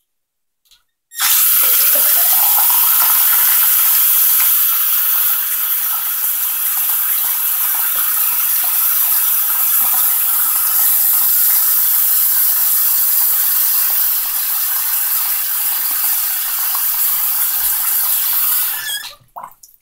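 Bathroom sink faucet turned on about a second in, its stream splashing into the basin and pouring down a drain just unclogged with baking soda and vinegar, then shut off near the end.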